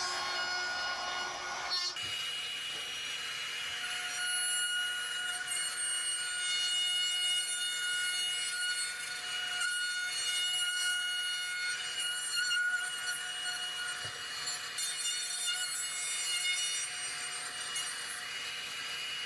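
Handheld router with a bowl bit running and cutting wood, a steady high motor whine over the noise of the cut.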